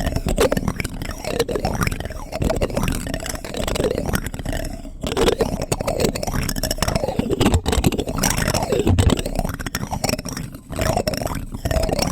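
Plastic spoon sounds close to an ASMR microphone: a continuous run of soft, wet-sounding scrapes and clicks, with a short lull near the end.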